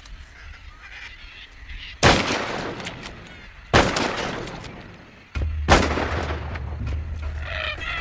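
Three high-powered rifle shots, each about two seconds apart, each followed by a long echoing tail, fired to scare cockatoos off the crops. Near the end a flock of cockatoos starts squawking.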